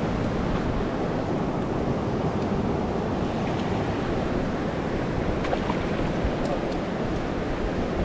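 Steady rushing of sea surf with wind on the microphone, and a few faint clicks in the second half.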